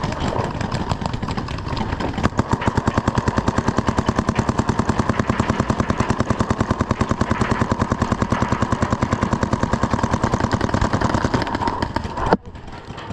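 Paintball markers firing in a fast, even stream of shots, with scattered shots in the first couple of seconds, cutting off suddenly near the end.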